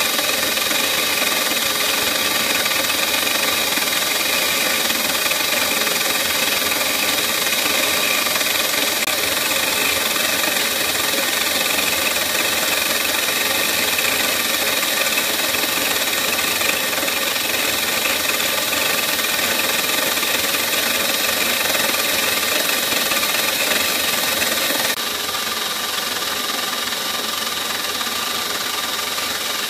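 CNC milling machine's end mill cutting a clear plastic block in a finishing pass that cleans up the rough cut: a steady machining noise with several held tones from the spinning spindle. The level steps down slightly about 25 seconds in.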